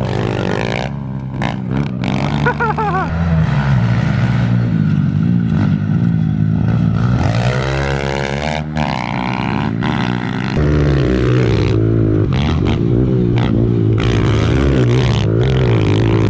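Two pit bike engines running hard in a race, revving up and down as the riders open and close the throttle, with a few short knocks and rattles.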